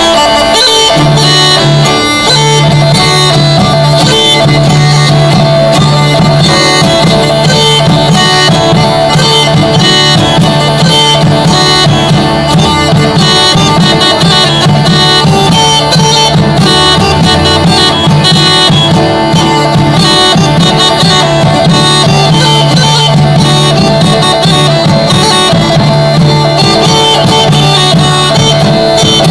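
Instrumental folk music played on bagpipes, a plucked lute and a large frame drum. The bagpipe drone holds one low note steadily from about a second in, under the melody, plucked strings and drum strokes.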